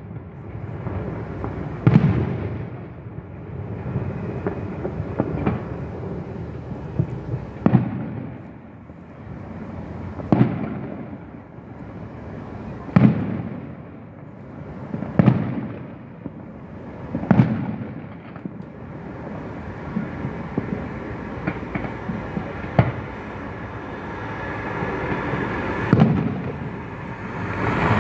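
Aerial firework shells bursting: a series of about eight sharp booms, two to five seconds apart, each trailing off in a long echo.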